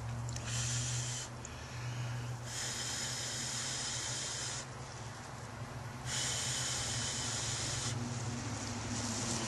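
Hand-drill friction fire: a spindle with a hemlock root plug spun between the palms on a sunflower root hearth, scraping and hissing in runs of a second or two with short breaks between strokes.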